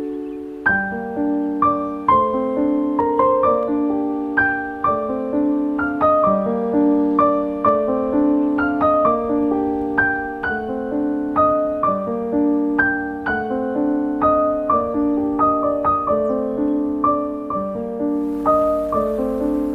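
Background piano music: a steady, even run of struck notes, each ringing out and fading.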